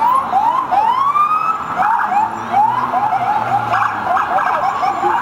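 Police car sirens sounding, more than one at once: repeated rising sweeps that quicken into a fast yelp about three seconds in.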